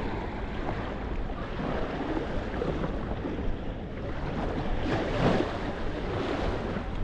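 Sea waves washing onto a sandy beach, with wind buffeting the microphone in a steady low rumble; one wave surges louder about five seconds in.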